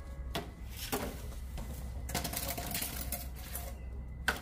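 Scattered sharp clicks and knocks, with a quick run of clicks about two seconds in and a louder knock near the end, over a steady low rumble.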